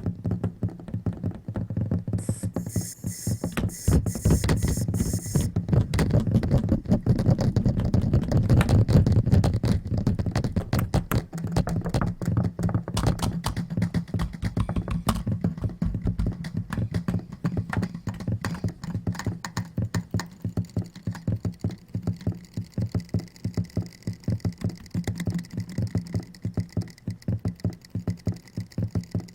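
Output of the RJDJ iPhone app's World Quantizer scene: sounds picked up by the microphone chopped and looped into a fast, stuttering rhythmic pattern of clicks over a steady low drone. A burst of hiss comes in about two seconds in and stops about three seconds later.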